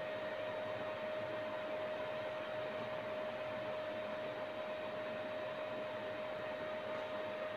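Steady background hiss with a constant hum tone running under it; no events.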